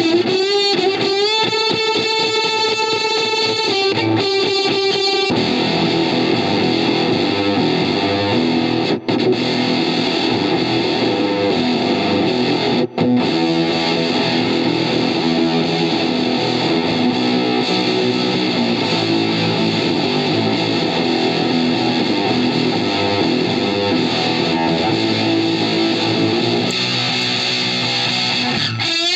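Electric guitar played through a reproduction Fender Blender octave-fuzz pedal, heavily distorted. A held note is bent and wavers for the first five seconds or so, then thick sustained chords ring on with two very brief cut-outs, and a single held, bent note returns near the end.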